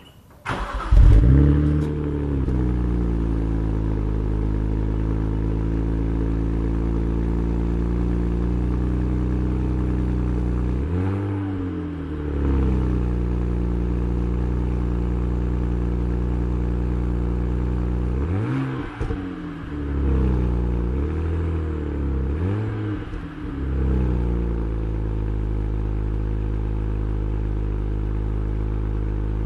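BMW 135i's twin-turbocharged 3.0-litre straight-six starting from cold, heard at its dual tailpipes: it catches about half a second in, flares up briefly, then settles to a steady idle. The engine speed swings up and down briefly about a third of the way in and a few more times past the middle.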